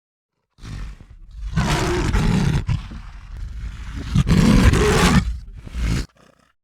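A large animal roaring: two long, loud roars about two and a half seconds apart, joined by a quieter rumble, then it stops suddenly.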